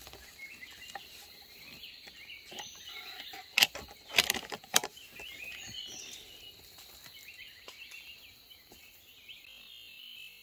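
Forest ambience: a steady insect drone with scattered small bird chirps, broken by a few sharp loud clicks about three and a half to five seconds in.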